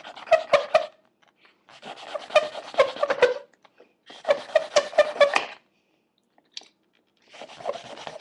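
Knife blade cutting into a thin plastic pencil tube as it is twisted: the plastic creaks and crunches in four bursts of one to two seconds each.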